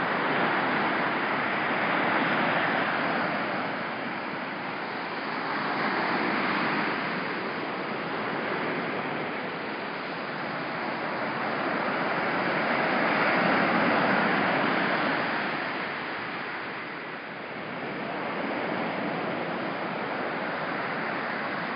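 Ocean surf breaking on a beach, a steady rush of water that swells and fades with each wave, about every four to six seconds.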